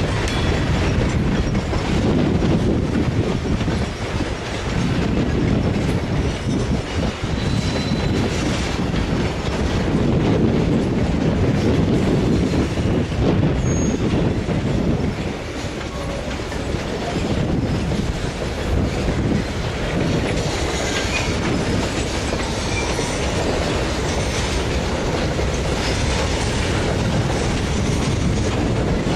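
A train running on rails: a steady low rumble with a few brief, faint high-pitched tones now and then.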